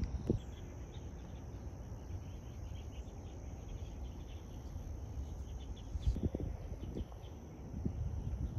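Outdoor ambience of steady high-pitched insect buzzing, over a low rumble of wind on the microphone. A few soft knocks stand out a little after six seconds in and again about a second later.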